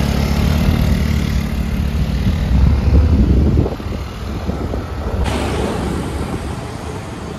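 Motor scooter engine running while riding, with road noise and wind on the microphone. The steady engine hum drops away about four seconds in, leaving rougher road and wind noise.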